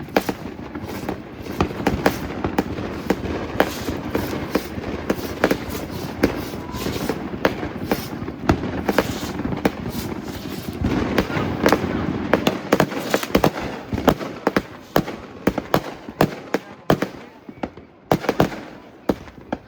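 Fireworks going off: a rapid, continuous barrage of bangs and crackles over a rumble, thinning out near the end.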